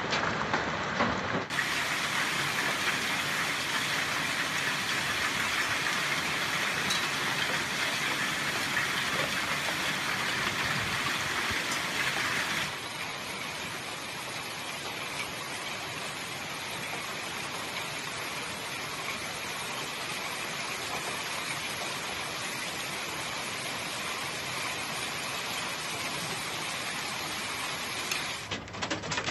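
Hail and heavy rain falling in a hailstorm, a dense steady hiss with no breaks, a little quieter from about thirteen seconds in.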